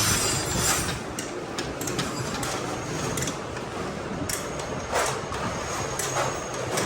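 Workshop noise: scattered knocks and clinks of tools on metal over a steady low background hum.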